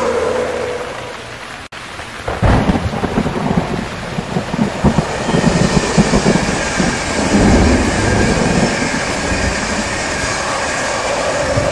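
Heavy rain hissing steadily, with a long rolling peal of thunder that breaks in about two seconds in and rumbles on, swelling again near the middle.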